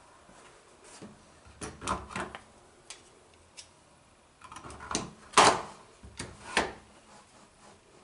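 Metal hand-handling noises: a steel mortise lock body and a hand tool clinking, knocking and scraping against each other and the door edge in a few short clusters, loudest a little past the middle.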